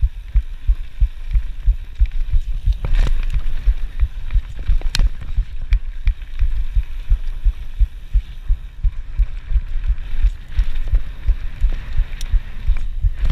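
The rider's own heartbeat, picked up through a chest-mounted camera, beating fast and regularly as a steady string of low thumps. A few sharp knocks cut through, the loudest about three and five seconds in.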